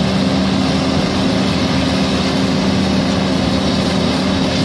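Diesel engine of a John Deere 200G tracked excavator running steadily as the machine moves onto a truck's flatbed.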